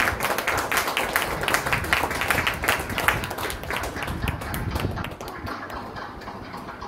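A small group clapping by hand, the claps dense and irregular at first, then thinning out and fading over the last couple of seconds.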